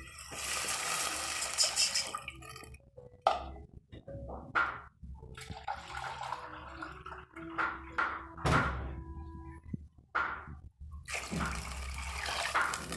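Water running and splashing in two spells, about the first two seconds and again near the end, with short splashes and knocks in between.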